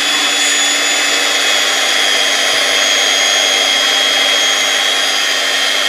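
Electric hand mixer running steadily, its beaters whisking cake batter in a glass bowl: an even motor whine with a high tone and a lower hum that do not change.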